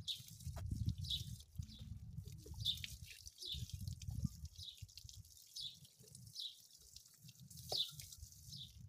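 Water dripping, a short high plink every half second or so, over an uneven low rumble.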